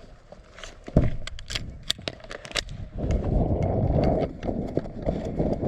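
Movement noise from a player moving on foot: scattered clicks and knocks, then from about three seconds in a louder, dense rumbling rustle of footsteps and gear.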